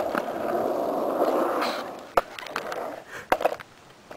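Skateboard wheels rolling on rough concrete, a steady grinding rumble that dies away about halfway through, followed by a few sharp knocks.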